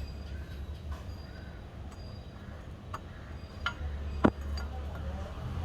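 Metal parts of a motorcycle exhaust being handled: a few faint clicks and one sharper metallic clink about four seconds in, over a low steady rumble.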